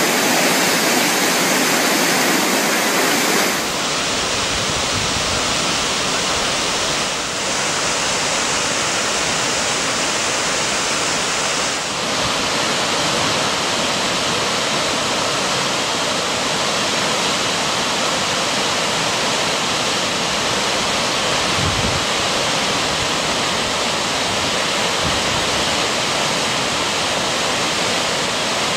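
Fast-flowing floodwater rushing, a loud steady noise of churning water; it is brighter and a little louder for the first few seconds, then settles to an even rush.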